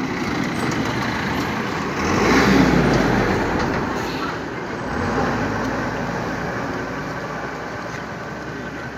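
A motor vehicle on the road runs with steady traffic noise. Its sound swells about two seconds in, with a deep rumble, and fades over the next two seconds.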